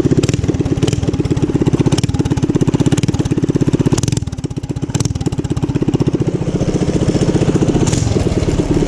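Small single-cylinder bike engine running with a rapid, even firing beat. The engine eases off for about a second roughly four seconds in, then picks up again. The rider says the bike feels underpowered.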